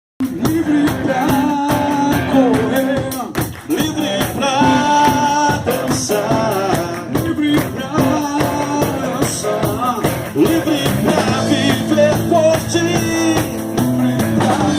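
Rock-style instrumental intro of a live worship band: a guitar playing the melody over bass guitar and a drum kit.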